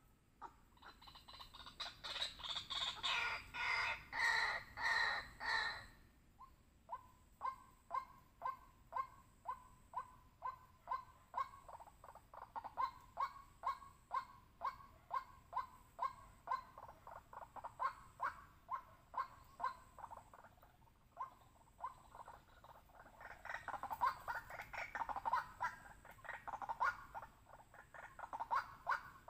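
White-breasted waterhen calling: a loud jumble of overlapping calls for the first few seconds, then a long series of evenly repeated notes at about two a second, and another jumble of calls near the end.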